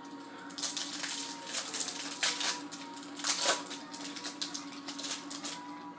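A foil hockey card pack wrapper being torn open and crinkled: a run of crackling rustles, loudest twice near the middle.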